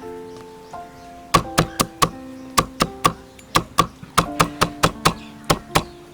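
Background instrumental music with long held notes. About a second in, a run of sharp knocks starts, roughly two to three a second and louder than the music.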